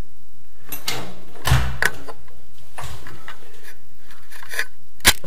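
Scattered knocks and clicks of hands and hardware handled under a washbasin cabinet, with a dull thump about a second and a half in and a sharp click near the end.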